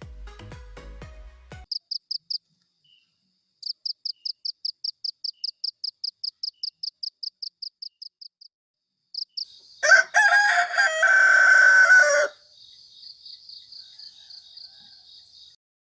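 Music with a beat cuts off about a second and a half in, followed by rapid trains of short high chirps, about four or five a second. About ten seconds in a rooster crows loudly for about two seconds, then the fainter chirping goes on.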